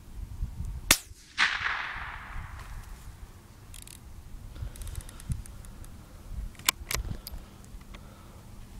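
.22 rimfire rifle firing a single sharp shot about a second in, followed by a short decaying rush of noise. A few sharp clicks come near the end.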